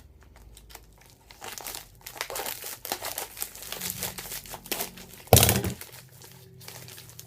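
A mailing bag crinkling and rustling as it is cut open with a blade and handled, in many quick crackles, with one louder, sharper rustle about five seconds in.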